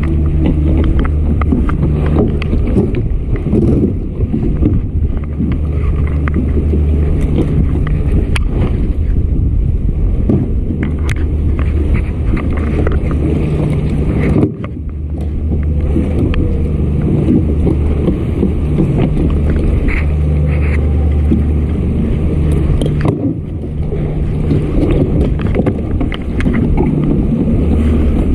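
A steady low drone with wind buffeting the microphone, broken by small knocks and rattles of fishing gear being handled on a kayak's deck. The drone dips briefly about halfway through.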